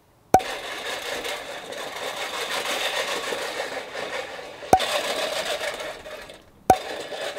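Push reel mower's spinning blades whirring and clattering over grass, a steady rough mechanical rattle. It is broken by three sharp clicks: one just after the start, one after about four and a half seconds, and one near the end.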